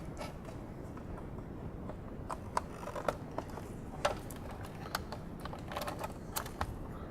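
Light, irregular plastic clicks and taps from a metal 90-degree pick prying at the retaining tabs of a GM power sunroof switch to release it from its housing. The clicks start about two seconds in and come roughly once a second, over a faint steady background noise.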